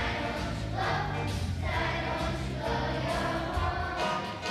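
A children's choir singing a song together, many voices in unison.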